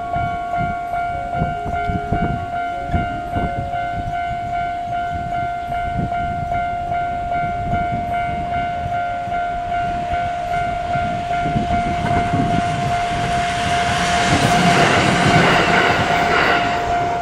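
Level-crossing alarm ringing steadily while a Kintetsu 1259-series electric train approaches. The train's running and rail noise swells over the last few seconds. Gusts of wind buffet the microphone throughout.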